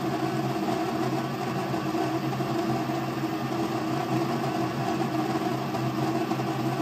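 KitchenAid Artisan burr coffee grinder running steadily, grinding a timed dose of coffee beans into a portafilter. It is an even motor hum with a steady pitch.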